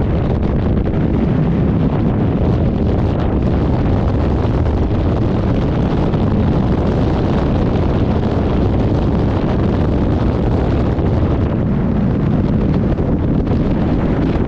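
Strong wind buffeting the microphone: a steady, loud rumble with no breaks.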